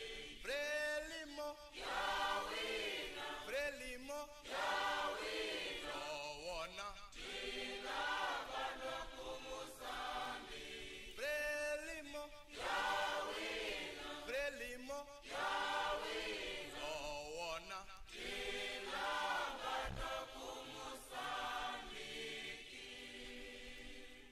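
A choir singing a Frelimo song, many voices together in repeated sung phrases.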